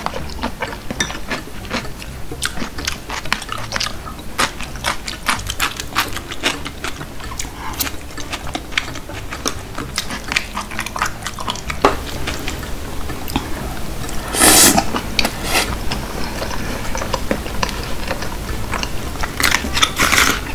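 Close-miked eating sounds: chewing, and wooden chopsticks clicking and scraping against a plastic takeout tray while picking up sauced fried chicken and stirring thick jjajang noodles. Two louder noisy bursts come about two-thirds through and near the end.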